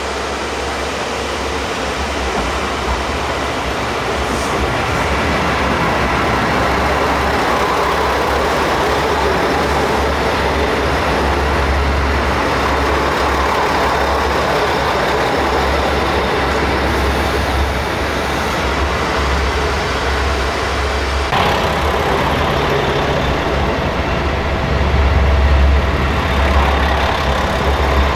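KiHa 185 series diesel railcar running slowly on the line: a steady low diesel engine rumble with wheel and rail noise, growing louder as the train draws close and passes. The sound changes abruptly about 21 seconds in.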